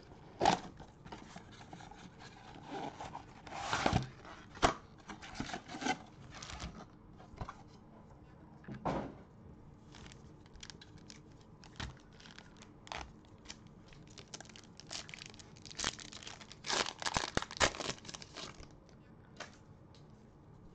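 Plastic shrink-wrap torn and crinkled off a cardboard trading-card box, then the box and card packs handled: scattered crinkles and rips, loudest about four seconds in and again a few seconds before the end.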